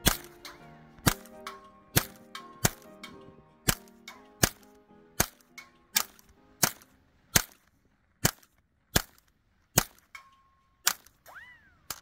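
GSG-15 .22 Long Rifle rimfire semi-automatic rifle fired in a steady string of about sixteen shots, roughly one a second.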